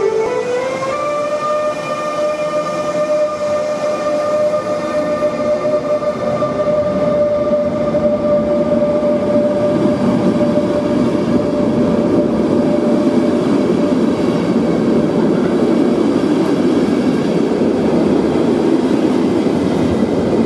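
ÖBB class 1116 Taurus electric locomotive accelerating away, its traction converter singing: the last of its rising stepped 'scale' glides up about a second in and then holds one steady high note, which fades about halfway through. The rumble of double-deck coaches rolling past grows louder as the note fades.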